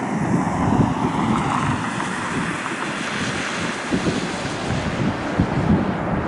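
Gusty wind buffeting the microphone over the steady rush of a jet airliner's engines as it rolls out after landing.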